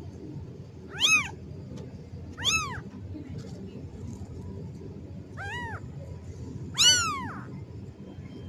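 Newborn kitten meowing four times, high thin cries that rise and fall in pitch, the last one longer and louder than the rest. These are the calls of a kitten crying for its mother.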